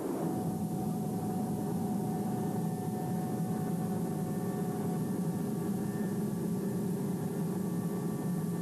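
A steady, low, engine-like mechanical drone with a few steady tones held above it.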